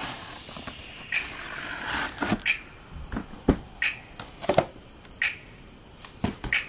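Cardboard shoe box being opened and handled: its flap pulled open and lid lifted, with a scraping rustle of cardboard sliding about one to two and a half seconds in and irregular knocks and taps of the box throughout.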